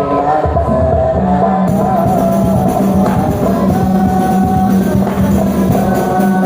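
Music: a high voice, likely a child's, singing a devotional song in praise of the Prophet (sholawat), with tambourine-like percussion behind it.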